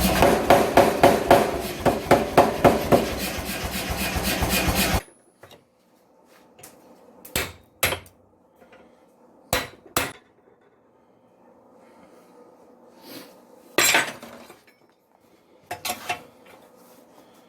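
Hammer blows on steel, about two a second, over a steady rushing noise, stopping suddenly about five seconds in. After that come a few separate sharp metallic clinks.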